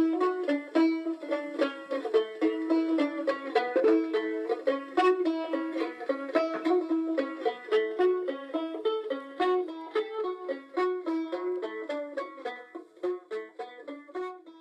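Background music: a quick run of plucked-string notes in a light tune, fading out near the end.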